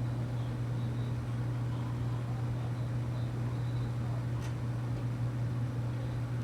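A steady low hum under a constant hiss, with a faint click about four seconds in.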